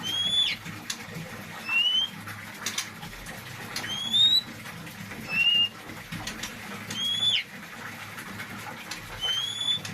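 Oriental magpie-robin (kacer wulung, the black Javanese form) calling with short rising whistles, six in all, about one every second and a half, some ending in a quick downturn. A few sharp clicks fall between the whistles. The bird is just through its moult and still calling.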